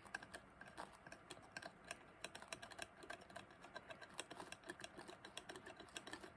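Faint, irregular light clicks and taps, several a second, with no steady sound beneath them.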